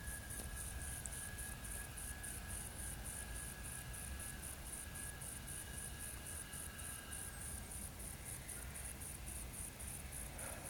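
An insect chirping steadily, about four high chirps a second, over a low background hum.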